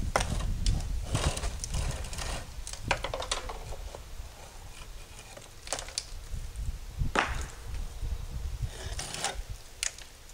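Scattered knocks and scrapes of broken concrete slabs being handled and shifted, over a steady low rumble. The knocks are busiest in the first few seconds, with single sharper ones after that.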